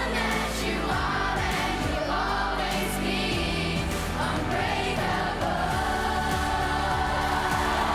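A song playing: a group of voices singing together over an instrumental backing with a steady beat.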